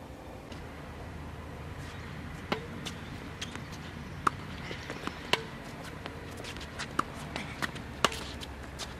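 Tennis rally on a hard court: sharp pops of racket strings striking the ball and the ball bouncing on the court, five loud ones a second or two apart, with fainter ticks between them.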